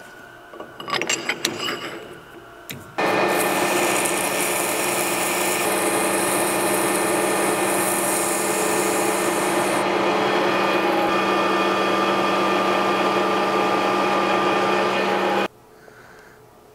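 A few sharp metal clinks as a part is set in a lathe's three-jaw chuck, then the metal lathe runs steadily with a hum while abrasive cloth rubs on the spinning metal nozzle tip, adding a rasping hiss that eases about two-thirds of the way through. The lathe sound cuts off abruptly near the end.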